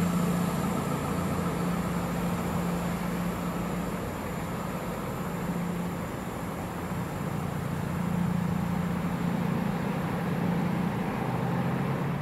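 A train running on the line: a steady rumble with a low humming tone that fades for a few seconds in the middle and then comes back.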